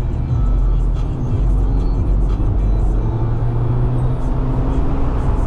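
Mazda MX-5 roadster driving on the road: a steady low rumble of its four-cylinder engine and tyre and road noise, the engine note shifting a little around the middle.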